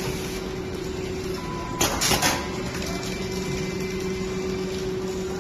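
Straw counting and packing machine running with a steady hum and fast mechanical ticking. About two seconds in there is a short, loud burst of clacks lasting about half a second.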